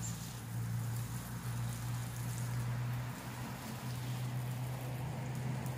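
Water from a garden hose spray nozzle showering onto leafy plants and soil, an even hiss of falling spray, over a steady low hum.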